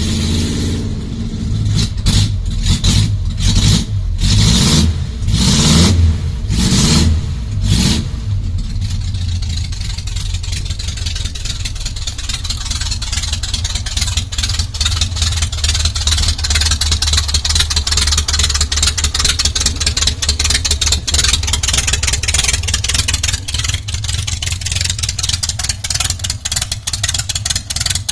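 An engine revved in short blips about once a second for the first eight seconds, then running steadily with a fast, regular, rough ticking beat.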